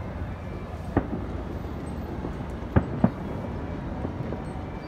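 Aerial firework shells bursting in the distance: three sharp bangs, one about a second in and two close together near three seconds, over a steady low rumble.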